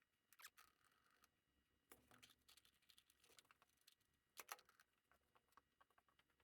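Near silence with a few faint scattered clicks and short rustles, the clearest about two seconds and four and a half seconds in.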